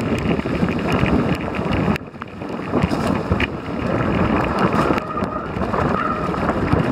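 A vehicle running, with heavy wind noise buffeting the microphone. There is a brief dip about two seconds in.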